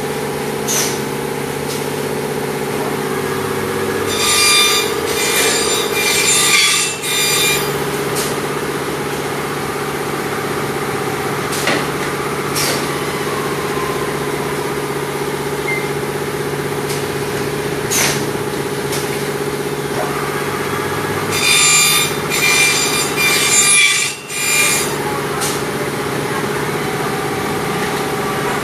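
CNC corner-cleaning machine running with a steady hum while its cutters clean the weld seams off PVC window-frame corners: two loud passes of high-pitched cutting, each about three seconds long, with sharp clicks in between.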